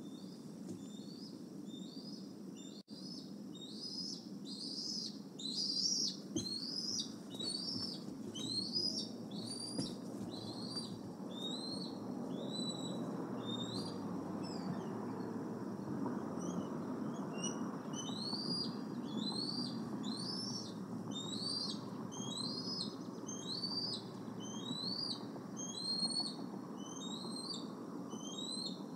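Juvenile bald eagles' high, whistled food-begging calls: short rising-and-falling chirps repeated about twice a second, breaking off for a few seconds midway and then resuming. A steady low background noise runs beneath them.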